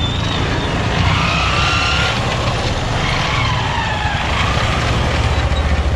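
Busy street traffic: a steady rumble of engines and road noise, with drawn-out high tones gliding up and down over it now and then.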